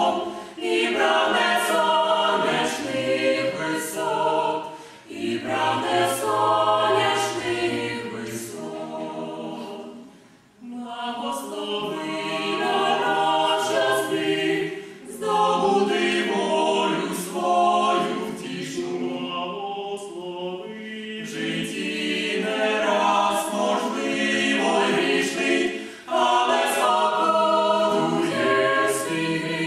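Small mixed vocal ensemble of three women and two men singing a sacred song a cappella in close harmony. It moves in long sustained phrases with short breath breaks between them, the longest gap about ten seconds in.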